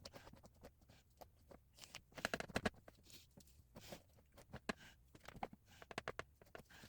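Faint, irregular clicking, tapping and scraping of a kitchen utensil as dog-treat batter is spread over a treat mat, with a louder run of taps about two seconds in.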